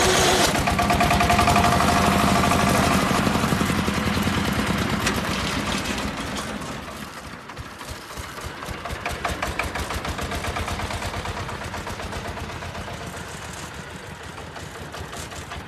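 Engine of a farm three-wheeler running with a rapid, even firing beat, loud at first, then falling off over the first seven seconds or so and running on more quietly.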